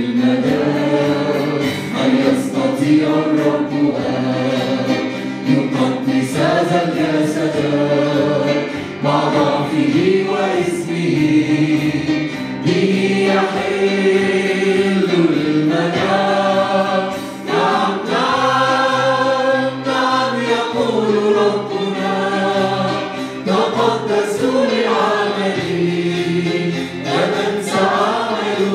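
A church worship team of men and women singing an Arabic hymn together, accompanied by keyboard and acoustic guitar.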